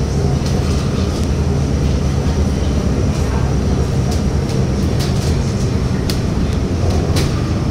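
Cabin noise inside a 2018 Hometown Trolley replica trolley bus as it runs: a steady engine hum and rumble with road noise, and sharp clicks from the cabin now and then.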